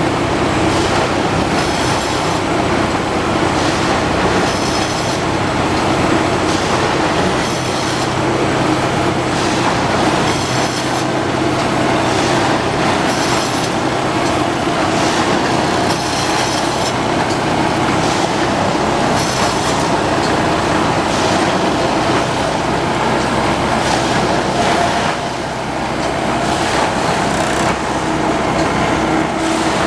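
Plasser & Theurer Unimat 09-16 CSM track tamping machine working on the ballast: a steady loud engine and hydraulic drone, with a short hiss-like burst every two to three seconds as the machine cycles.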